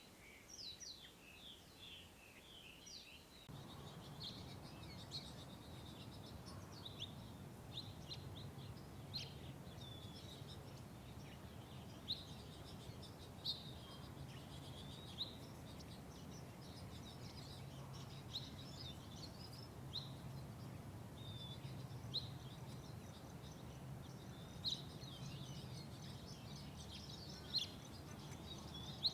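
Small birds chirping and twittering, with short high calls repeating throughout. A low steady background noise comes in a few seconds in.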